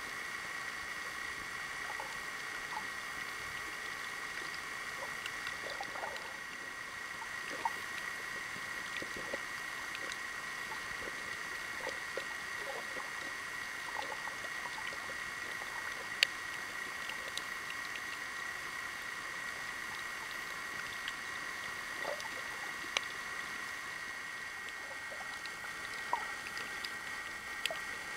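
Underwater ambience as picked up by a submerged camera: a steady hiss with scattered faint clicks and pops, and a few sharper clicks.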